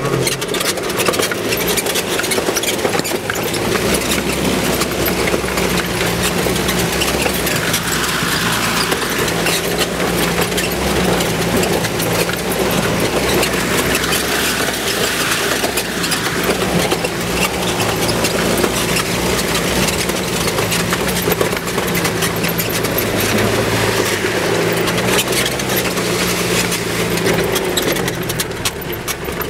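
Off-road vehicle's engine running steadily, heard from inside the cabin, as it drives through a river ford with water rushing and splashing against the body, most strongly in the middle.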